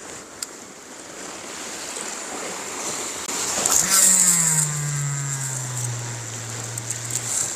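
A motorboat's engine passing offshore, its hiss swelling to a peak about four seconds in while the engine note slides steadily down in pitch as it goes by, then cuts out shortly before the end.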